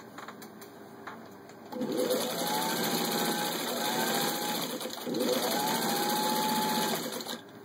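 1951 Singer 15-91 sewing machine, its built-in potted motor driving the needle fast through six layers of denim. The motor whine rises as it speeds up about two seconds in, slackens briefly about five seconds in, picks up again and stops shortly before the end. The machine is pretty strong and fast.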